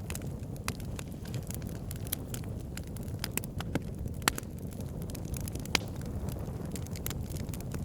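Fire burning: a steady low rumble of flames with frequent irregular sharp crackles and pops, a couple of louder pops around the middle.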